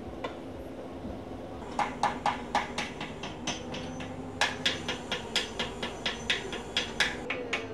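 Hammer striking metal at a construction site: quick, evenly spaced blows at about four a second, starting about two seconds in, with a short break in the middle. A steady engine hum runs underneath.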